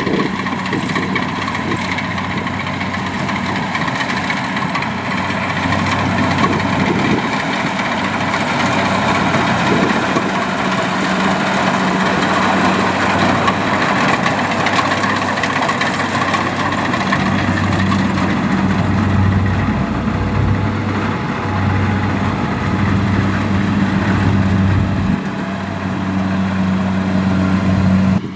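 Kubota DC70 combine harvester's diesel engine running steadily under load as the machine cuts and threshes rice, with a low throb that pulses unevenly in the second half.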